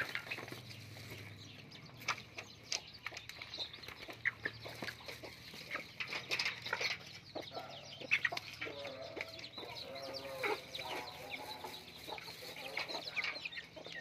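Young chickens clucking and chirping, with many short sharp taps between the calls. A run of lower clucks comes about 8 to 11 seconds in.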